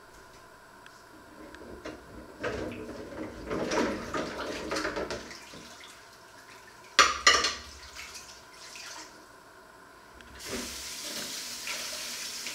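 Dishes being washed by hand in a sink: a plate scrubbed with a sponge amid clattering crockery, two sharp clinks of dishes about seven seconds in, then the tap running near the end.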